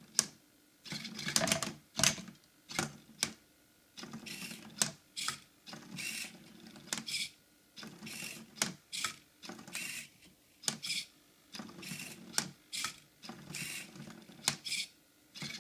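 Hobby servos of an Arduino-driven Rubik's cube solving robot working in quick bursts, with a string of short whirs and sharp clicks as the cube is flipped, held and turned.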